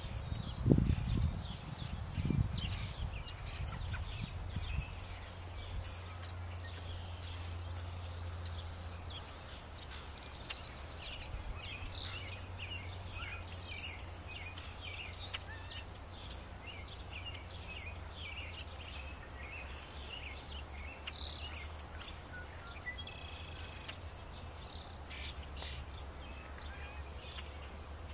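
Birds chirping outdoors: many short, high chirps and calls, frequent throughout, over a low rumble. A couple of loud low thumps about one and two seconds in.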